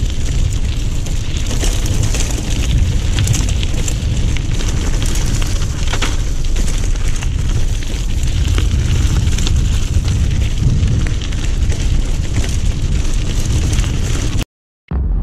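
Wind buffeting the camera microphone and mountain-bike tyres running over loose gravel on a fast descent, with frequent clicks and rattles from stones and the bike. The sound cuts off suddenly near the end.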